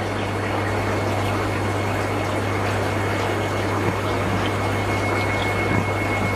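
Steady rushing, bubbling water noise from aquarium tanks, as from aeration and water movement, over a constant low hum.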